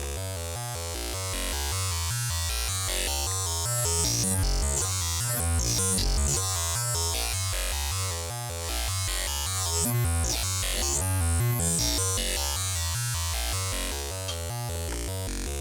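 Homemade CPU-less wavetable synthesizer oscillator playing the "cactus" wavetable, a gritty dubstep-like synth tone. It plays a fast repeating pattern of low notes, and its brightness sweeps up and down through the middle of the passage.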